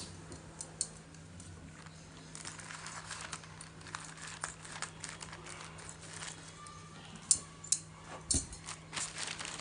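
Crinkling and small clicks of packaging being handled and opened, with a few sharper clicks near the end.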